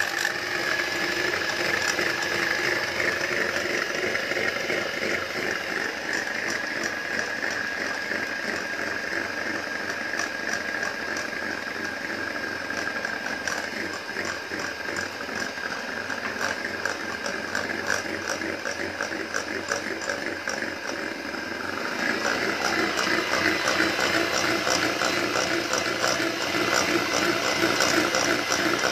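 Electric hand mixer running steadily, its beaters whisking eggs and sugar in a glass bowl with a light rattle. It gets louder about three-quarters of the way through.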